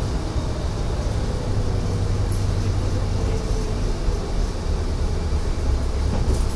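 Mercedes-Benz Citaro city bus driving, heard from inside the cabin: a steady low rumble of engine and road noise.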